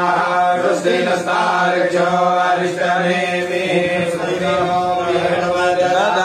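Male voices of Brahmin priests chanting Sanskrit blessing mantras together, a continuous recitation held on a steady, nearly level pitch.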